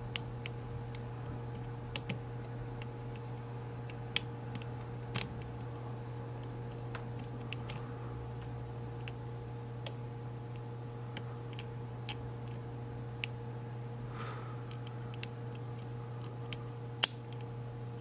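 Hook pick clicking against the pin stacks and warding inside an Evva DPI cylinder lock as it is single-pin picked under tension: scattered, irregular small metallic clicks, the loudest near the end, over a steady low hum.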